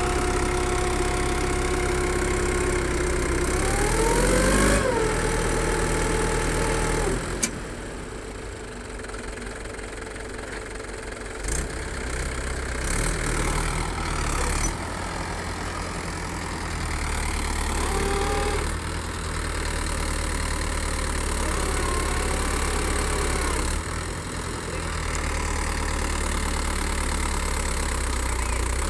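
Mahindra tractor diesel engines running while a rear leveling blade is worked through loose sandy soil. About four seconds in the engine is revved, with a whine rising and then settling at a higher pitch. The engine note then shifts up and down as the tractors take load.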